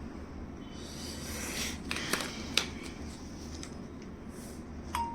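Light handling of a mobile phone: soft rustling and a few sharp clicks. Just before the end, electronic beeping tones from the phone begin, as from a freshly repaired Nokia switching on.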